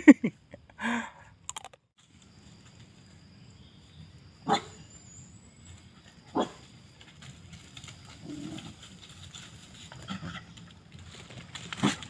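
A dog gives a few short, sharp barks several seconds apart, one at a time, over a faint steady high-pitched drone.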